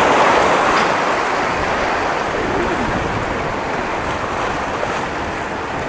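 Small waves washing in over sand and rocks at the water's edge, a steady rush that is loudest at first and eases slowly.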